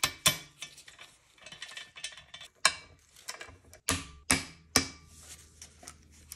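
A light hammer tap on the wastegate actuator's new linkage pin, then a ratchet wrench working the actuator's mounting bolts, with light clicking and a few separate sharp metallic clicks.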